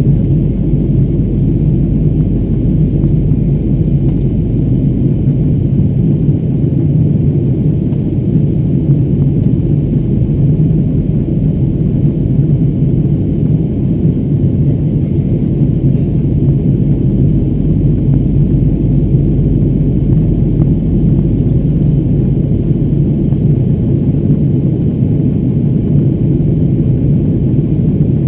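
Steady cabin rumble of an Airbus A340-600 in flight: the drone of its four Rolls-Royce Trent 500 engines and airflow, heard from inside the cabin at a window seat over the wing, deep and unchanging.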